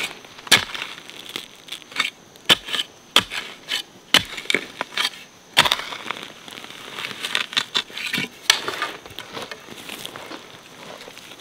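Irregular crunching with sharp cracks and snaps of brittle material, spaced unevenly and some much louder than others.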